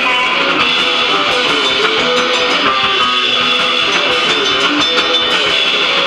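Punk rock song in an instrumental passage led by strummed electric guitar, loud and unbroken, with no vocals.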